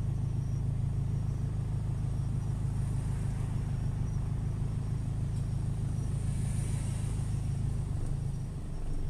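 Steady low rumble of a car idling in stopped traffic, heard from inside the cabin, with a faint rise in hiss about six to seven seconds in.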